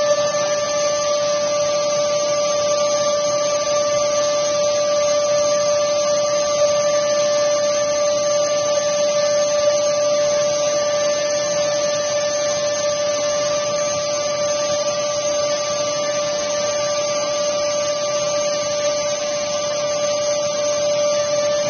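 Wet/dry shop vacuum running steadily, its motor giving a constant high whine over the rush of air through the hose.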